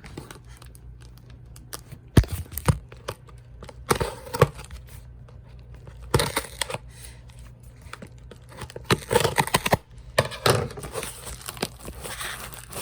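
A taped shipping package being torn open by hand: packing tape ripping and the packaging crinkling in irregular bursts, with a few sharp clicks.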